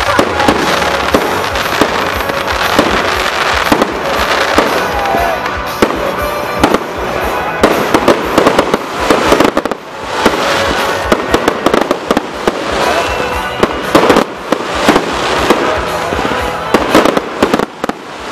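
Fireworks display: aerial shells bursting overhead in rapid, near-continuous bangs and crackles, with a brief lull about ten seconds in.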